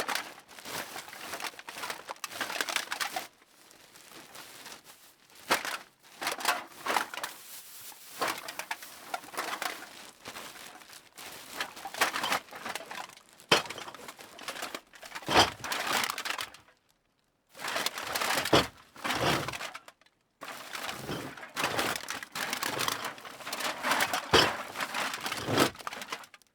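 Cans being dropped and shoved into a bag: repeated clattering knocks of can against can, mixed with the crinkling of the bag, in bursts broken by two short pauses.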